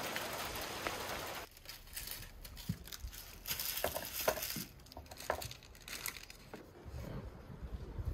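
Steady rain hiss that cuts off abruptly about a second and a half in. Then a wooden rolling pin rolls out a thin round of khinkali dough on a wooden board, with light scattered knocks and rubbing.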